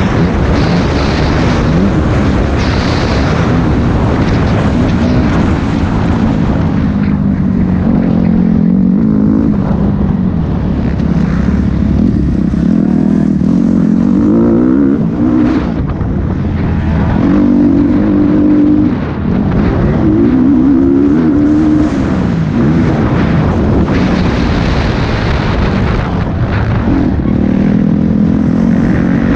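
Motocross bike engine revving hard while being ridden, its pitch rising and falling repeatedly with throttle and gear changes, and a short easing off about two-thirds of the way through. Wind noise sits under it.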